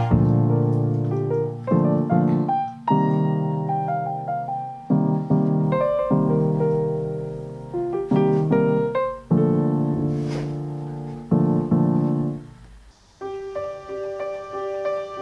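Background piano music: slow notes and chords, each struck and left to ring and fade, turning quieter and more sustained near the end.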